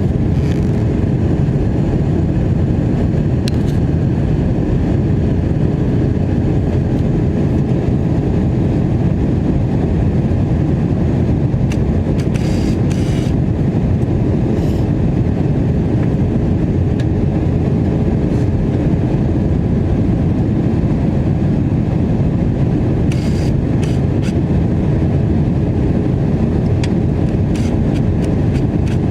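Steady, loud cabin noise of an Airbus A321 airliner in flight, a deep rumble of engines and airflow with a faint steady hum, broken by a few brief rattles.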